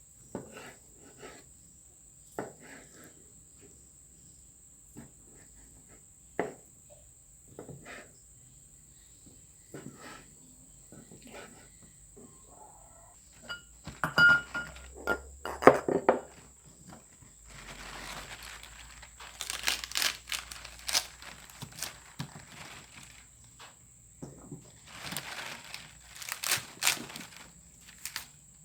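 Handling sounds while preparing food: scattered light knocks and clicks, a few louder clinks about halfway with a brief ring, then two spells of crinkly rustling.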